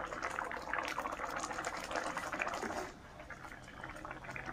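Pork green curry in coconut milk simmering in a pan, bubbling with many small pops and crackles that ease off after about three seconds.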